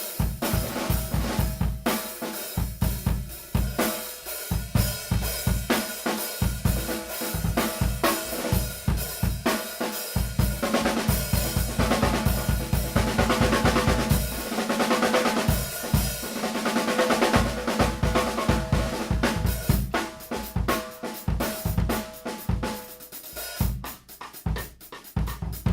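Drum kit played in grooves and fills around a Mapex Armory Peacemaker snare, which has a maple and walnut shell tuned high. Bass drum and cymbals are heard along with the snare. In the middle comes a stretch of fast, dense strokes.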